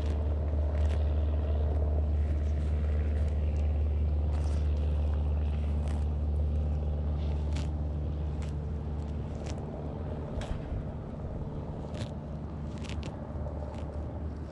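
A steady low engine drone that slowly fades, with about ten sharp clicks scattered through it as a gopher tortoise bites and tears off grass.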